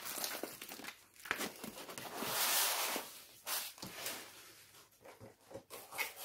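Rustling and crinkling of a rolled diamond-painting canvas and its protective sheet being unrolled and handled, loudest over the first three seconds, then fainter scattered rustles and light taps as it is lifted away.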